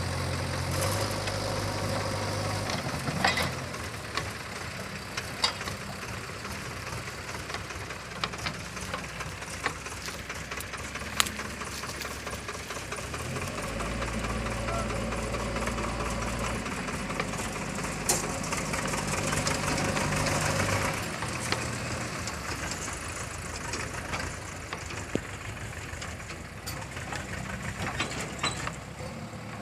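JCB 3DX backhoe loader's diesel engine running while working, its pitch stepping up and down several times, with a few sharp metallic clanks.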